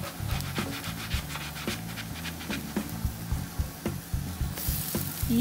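Spatula scraping and clicking against a frying pan while working under a pancake that is sticking a little to the pan, a quick run of short scrapes. Near the end a burst of sizzling as the pancake is flipped onto the hot, greased pan.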